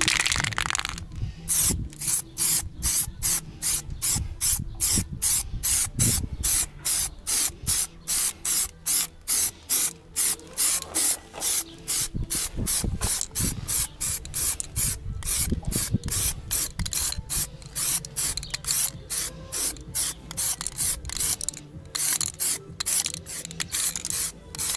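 Aerosol can of primer spraying in short, even bursts, about three a second, after one longer spray at the start.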